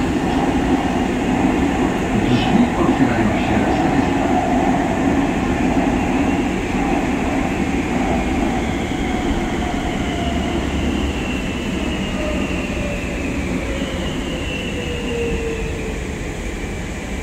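Warsaw Metro train running, heard from inside the carriage: a steady rumble and rolling noise. Over the second half a whine glides slowly down in pitch as the train slows toward a station.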